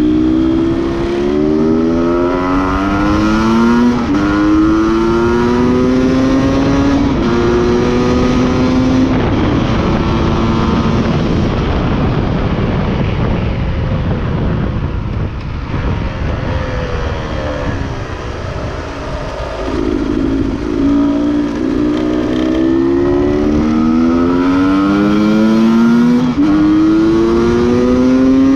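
Two-stroke Beta RR enduro motorcycle engine accelerating hard up through the gears. Its pitch rises in each gear and drops back at each shift, again and again. About midway it goes quieter off the throttle for several seconds, then pulls up through the gears again.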